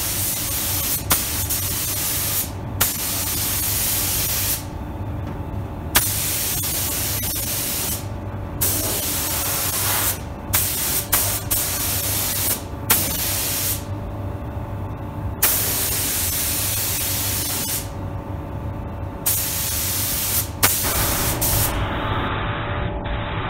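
Compressed-air hiss of a Sata 5000 RP spray gun with a 1.2 mm nozzle spraying clear coat in passes. The hiss cuts off briefly several times between strokes as the trigger is released, over a steady low hum.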